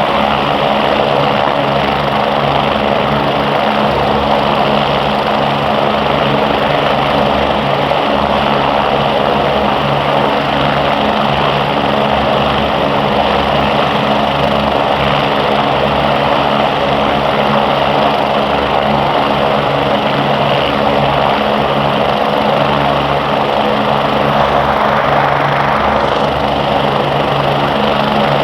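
BK117 helicopters running, a loud, steady drone of rotors and turbine engines that holds without a break.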